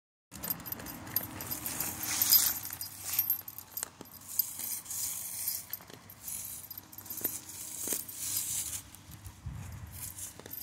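A Mastweiler puppy digging with her front paws, scraping and scratching through dirt and dry leaves in bursts about a second long, several times over, with a few sharp clicks in between.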